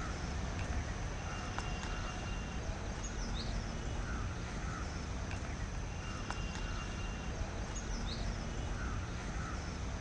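Outdoor ambience: birds calling every few seconds, short repeated calls over a steady low rumble.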